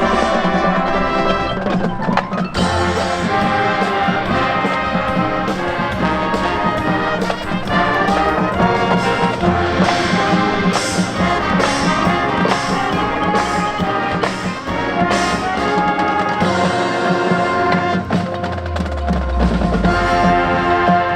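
High school marching band playing: brass chords over a rhythmic percussion section, with sharp drum and wood-block strokes.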